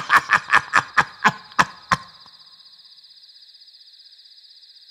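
A quick run of sharp knocks, about five a second, slowing down and stopping about two seconds in. After that, crickets chirp steadily and faintly.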